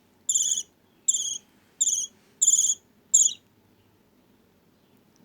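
Budgerigar chick's begging calls: five short, raspy chirps about two thirds of a second apart, stopping about three and a half seconds in.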